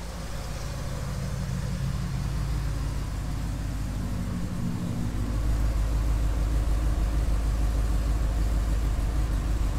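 Ford SVT Lightning's cammed, supercharged 5.4 L V8 idling steadily through longtube headers and a 3-inch exhaust, getting louder about halfway through. It is a warm idle being data-logged for tuning, and it sounds real nice and healthy.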